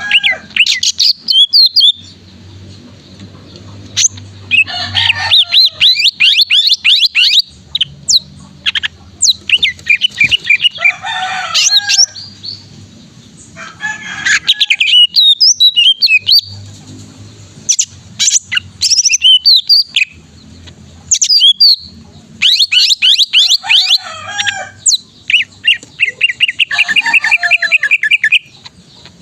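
Male cucak ijo (green leafbird) singing loudly in repeated bursts of rapid, sweeping notes, each lasting a second or two with short pauses between, with a fast trill near the end.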